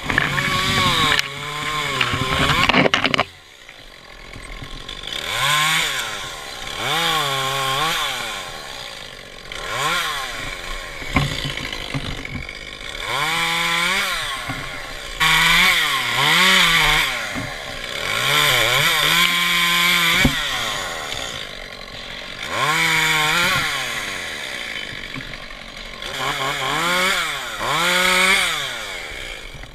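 Echo CS-271T top-handle two-stroke chainsaw cutting red maple limbs, revved up and eased off again and again. The engine note climbs and falls about ten times, with a long high run at the start that drops away after about three seconds.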